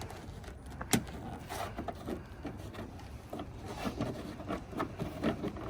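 Items being handled and rummaged through in a car's trunk: scattered light knocks and rubbing, with one sharp click about a second in.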